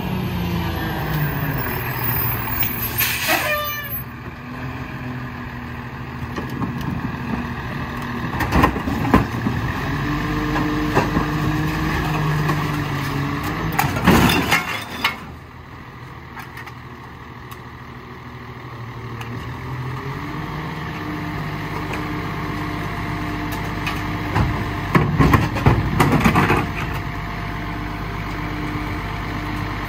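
Lodal EVO split-body garbage truck running, its engine note shifting as it moves and works, broken by four short loud bursts of noise.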